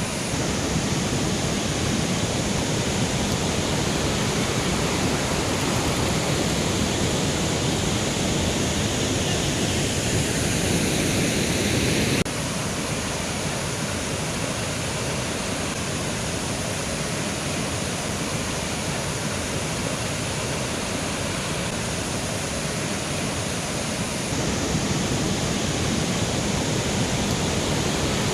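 Mountain river flowing: a steady, full rush of water. The sound drops abruptly a little about twelve seconds in and comes back up a few seconds before the end.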